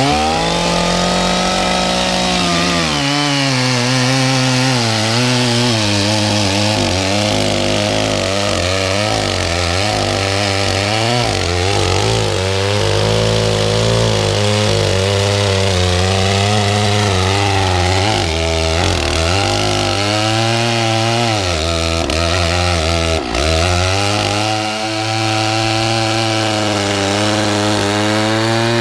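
Gasoline chainsaw cutting through eucalyptus wood at high revs. It revs up right at the start, then its pitch wavers as the chain loads and unloads in the cut, with a brief drop about three quarters of the way through.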